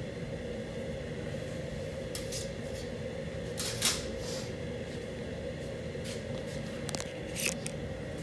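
Sheet metal being handled, giving a few brief scrapes, the loudest about four seconds in, over a steady low hum.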